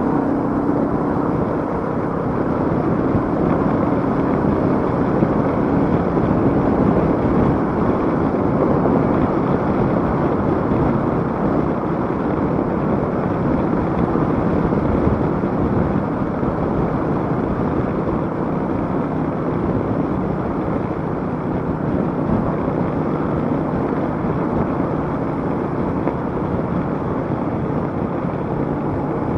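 Motorcycle being ridden at a steady pace: engine running and a steady rush of wind and road noise. The sound holds even, with no revving up or down.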